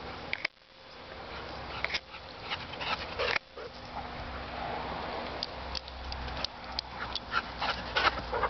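A dog making small sounds in a grassy field, with a run of short, sharp clicks in the last few seconds.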